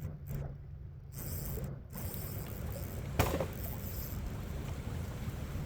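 Fishing reel mechanism working while a hooked steelhead pulls against the line, over steady river and wind noise, with one sharp click about three seconds in.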